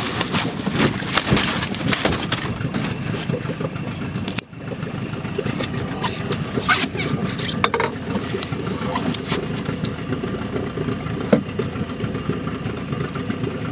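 Water splashing and slapping as a hooked grass carp thrashes at the boat's side. After a sudden cut about four seconds in come scattered knocks and rustles as the fish is handled in a landing net on the deck, over a steady hum.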